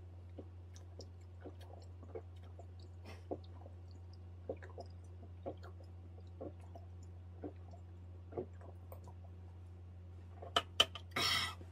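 Soft gulping swallows, about one a second, as a bottle of calamansi soju is drunk down in one go, over a steady low hum. Near the end come a couple of sharper clicks and a short, louder breathy noise.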